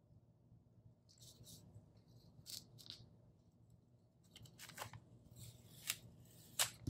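Faint scratching and rustling of a paper sticker being cut, with a few sharp clicks in the second half as the cutting struggles through it.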